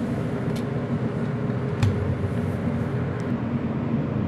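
Steady low mechanical hum, with a few faint clicks. The clearest click comes about two seconds in.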